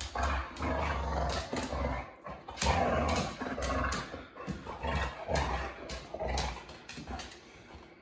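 Boxer dog grumbling and growl-talking in a run of short, rough vocal bursts, about one every second.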